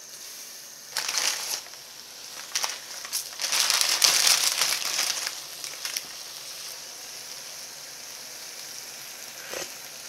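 Instant-noodle packets crinkling loudly as they are torn open and handled, loudest from about three to five seconds in. Before that, a short splash about a second in as quail eggs are tipped into the pot of broth, and afterwards only a low steady simmer.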